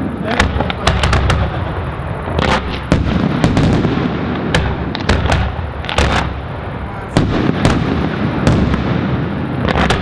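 Aerial fireworks shells bursting in quick, irregular succession: about two sharp bangs a second over a continuous deep rumble of explosions.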